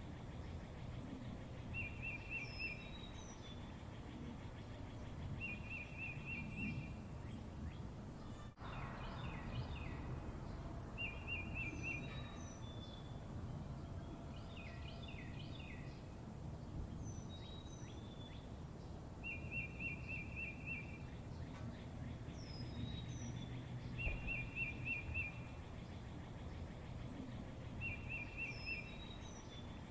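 Songbirds singing: a short, even trill repeated every three to four seconds, with high falling chirps and two bursts of twittering in between, over a low steady background hum.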